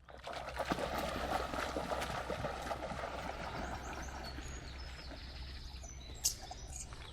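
River water flowing and trickling over a steady low rumble, with a few short bird chirps in the second half.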